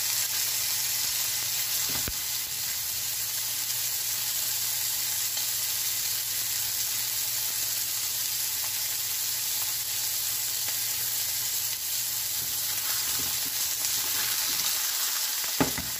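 Thin-sliced New York strip loin steaks sizzling steadily in hot oil in a nonstick frying pan. A light click sounds about two seconds in, and a sharper, louder one comes near the end.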